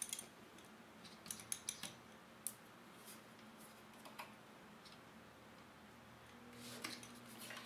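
Faint small clicks of pliers gripping and working plastic latch pins on an amplifier circuit board, several in quick succession near the start and one more later, with a soft rustle near the end.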